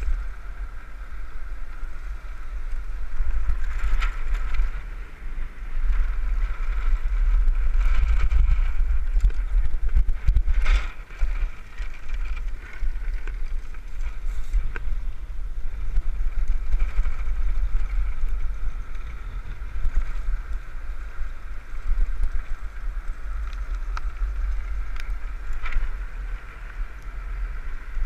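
Wind buffeting the microphone of a windsurf-rigged land yacht running fast over beach sand, a heavy rumble that surges and eases, with a steady higher whir from the moving cart underneath and a few sharp knocks.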